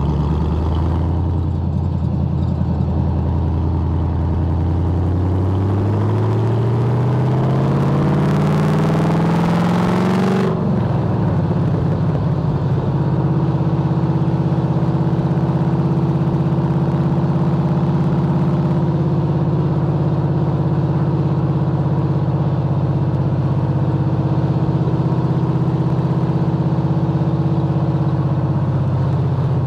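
Holden VY Commodore SS's 5.7-litre LS1 V8 accelerating: the revs climb steadily for about six seconds, with a hiss building near the top, then drop sharply at an upshift about ten seconds in. After that the engine runs at a steady cruise, heard from a camera mounted on the car's side.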